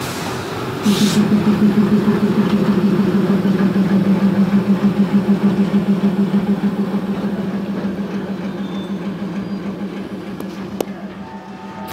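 Diesel locomotive engine running hard as the locomotive passes close by. Its steady low drone starts abruptly about a second in, pulses about three times a second, and fades over the last few seconds as the locomotive draws away.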